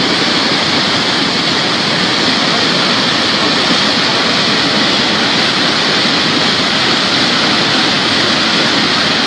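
Loud, steady rushing of a muddy flash-flood torrent of churning water.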